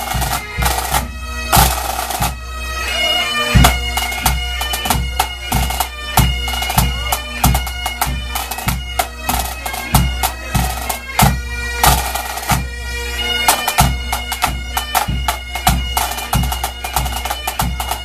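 Bagpipe music: a melody over steady drones, with a regular drum beat.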